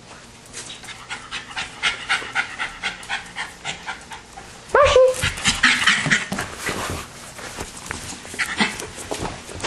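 Small dog panting rapidly, about three breaths a second. About halfway through comes a sudden louder burst: a brief falling cry, then rustling right at the microphone.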